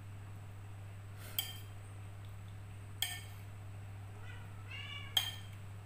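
Metal fork clinking against a ceramic plate three times, each clink ringing briefly. A short rising squeak comes just before the last clink.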